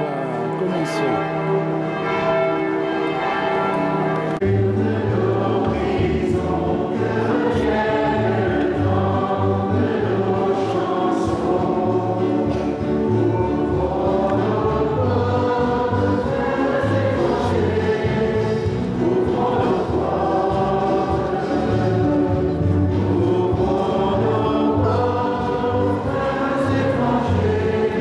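Choir singing a hymn with instrumental accompaniment; a low bass part comes in about four and a half seconds in.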